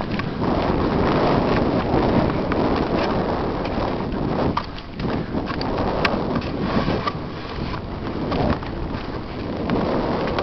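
Wind buffeting the microphone of a helmet camera on a mountain bike riding fast downhill on a dry dirt trail, with the rumble of tyres on dirt and short knocks and rattles as the bike hits bumps.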